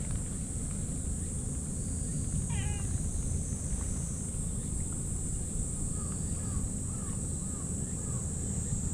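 A brown-tabby-and-white stray cat gives one short meow about two and a half seconds in. Later a run of about five short, evenly spaced chirps follows.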